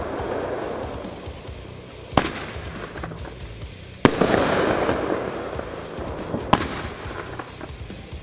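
24-shot fireworks cake firing: three sharp reports, about two, four and six and a half seconds in, each followed by a fading crackle as the stars burst.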